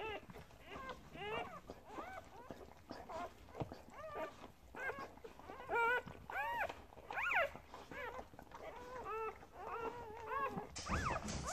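Newborn Springer Spaniel x Kelpie puppy whimpering: a run of short squeaks that rise and fall in pitch, about two a second. A rustling noise rises near the end.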